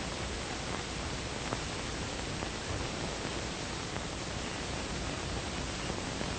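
Steady hiss of an old 1950s television film soundtrack, with only a faint tick about a second and a half in and no other clear sound.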